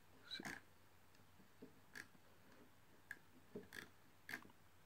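Faint, scattered clicks from a computer being used to scroll through a document, about six in all, over near-silent room tone.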